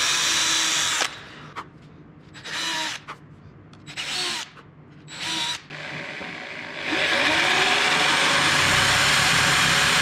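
Cordless drill whining steadily as it bores a pilot hole into an ash benchtop, stopping about a second in, then three short bursts of the drill. From about seven seconds a corded drill spins up and runs loudly, boring a large hole through the ash top.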